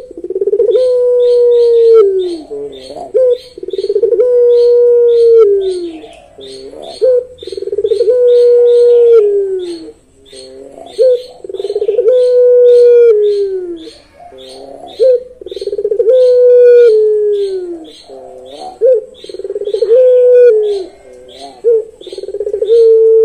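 A puter pelung, a ringneck dove bred for a long voice, cooing over and over. Each coo is long and drawn out, held level and then sliding down in pitch at the end, about one every two seconds. Quick high chirping runs behind it.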